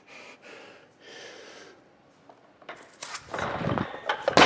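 Sharp breaths through the nose as a weightlifter sets up, then a barbell loaded to 111 kg pulled from the floor in a snatch: the bar and plates clatter louder and louder, with a loud impact near the end as the weight is caught overhead in a deep squat.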